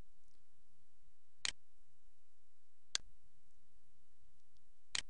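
Computer mouse button clicking three times, short sharp clicks about one and a half to two seconds apart, over a faint steady low hum.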